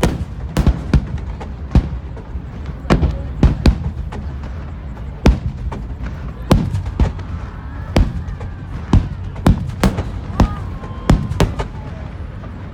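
Aerial fireworks shells bursting in a rapid, irregular barrage: sharp booms several times a second over a continuous low rumble, typical of a display finale.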